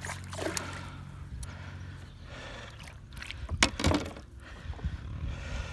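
Water splashing beside a kayak as a hooked peacock bass thrashes at the surface and is hand-lined in, with a few sharp splashes and knocks about three and a half to four seconds in as the fish is lifted from the water.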